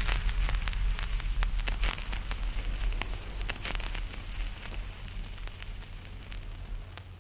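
Irregular crackling and popping over a low steady hum, the whole fading out gradually toward the end.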